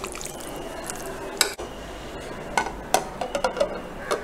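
A thick paneer marinade being mixed in a ceramic bowl, with a few scattered sharp clinks. Near the end comes a quick run of china clinks as a ceramic plate is laid over the bowl as a lid.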